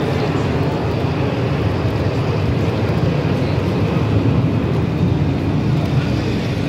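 Model train running along a layout's track close to the microphone: a steady low rumble of wheels and motor.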